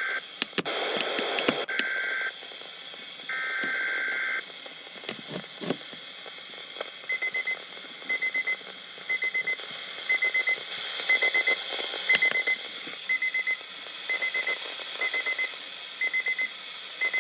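Weather radio receiving an alert. Buzzing bursts of SAME digital header tones come in the first few seconds, then the receiver's alarm beeps in short rapid clusters about once a second, over radio hiss.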